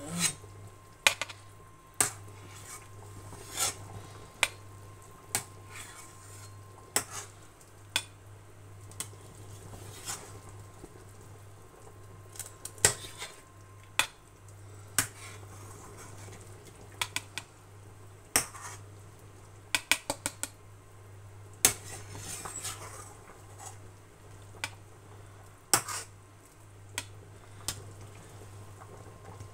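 Perforated metal skimmer clinking against a stainless steel pot and a bowl while foam is skimmed off boiling broth. There are sharp clicks every second or two, with a quick run of taps about twenty seconds in, over a steady low hum.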